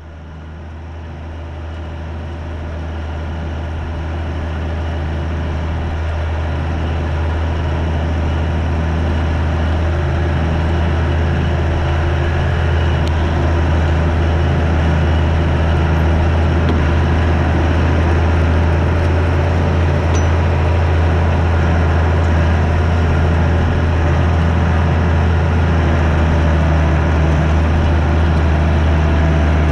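Allis-Chalmers 200's turbocharged six-cylinder diesel running steadily with a deep, even hum while pulling a tandem disk in field tillage, heard from the operator's seat. The sound grows louder over the first several seconds, then holds steady.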